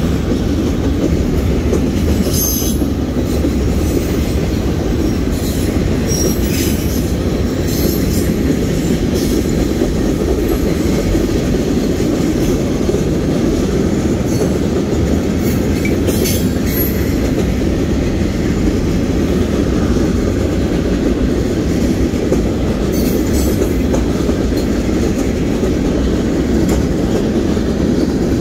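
Union Pacific freight train's cars rolling past, a steady loud rumble and clatter of steel wheels on rail, with brief high-pitched wheel squeals every few seconds.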